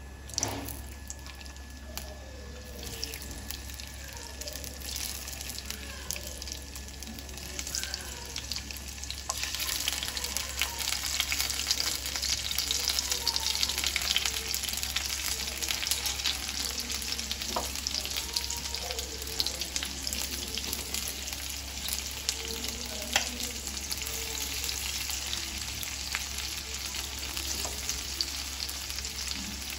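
Stuffed kantola (spiny gourd) pieces sizzling as they shallow-fry in oil in a nonstick pan. The sizzle grows louder about nine seconds in as more pieces are laid in the oil, with a few light clicks between.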